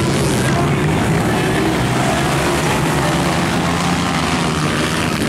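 Dirt bike engines running as the motorcycles race around a dirt track, a continuous loud engine drone.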